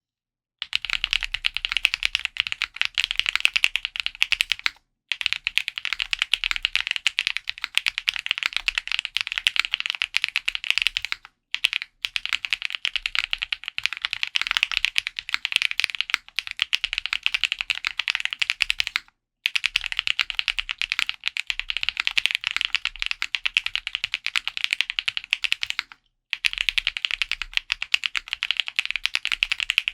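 Fast, continuous typing on a VEGA custom mechanical keyboard with lubed Kailh Box Blueberry Cream Pro linear switches, a POM plate and GMK Shoko keycaps. The dense key clacks start just under a second in and stop briefly for short pauses about every six to seven seconds.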